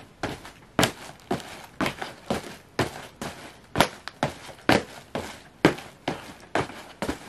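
Cardboard Ugg boot box being crushed flat, crunching and crackling in even, repeated presses about twice a second.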